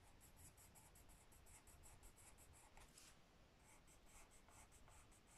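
Coloured pencil scratching faintly on squared notebook paper in quick, short back-and-forth strokes, about five a second, as it goes back over a drawing's outline, with a brief pause about three seconds in.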